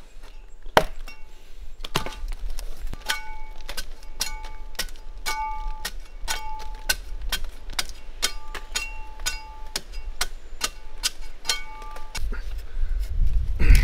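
Machete chopping bark from a tree trunk: repeated blows, about two a second, each with a short metallic ring from the blade. A low rumble comes in near the end.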